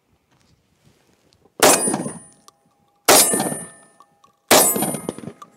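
Three shots from a Remington V3 TAC-13 semi-automatic 12-gauge firing 3-inch high-velocity steel shot shells, about a second and a half apart. Each shot is followed by metallic ringing from struck steel targets.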